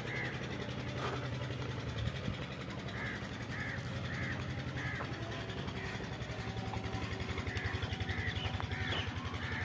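A crow cawing over and over, short harsh calls every half second to second, over a steady low hum.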